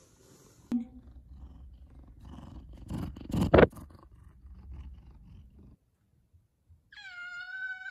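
Bumping and brushing noises as a cat rubs past the phone, with a sharp knock about a second in and a loud bump midway. Near the end one F2 Savannah cat gives a single drawn-out meow, dipping slightly in pitch and then held steady.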